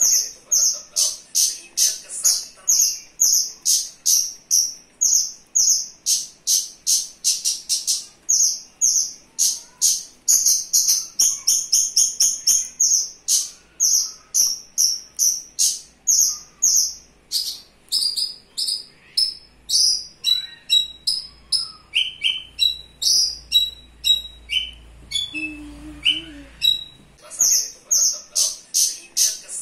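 Javan bush lark (branjangan) singing: a long run of sharp, high, quickly repeated notes, several a second, that breaks into faster trills. In the second half it changes to lower falling notes, and the quick high notes return near the end.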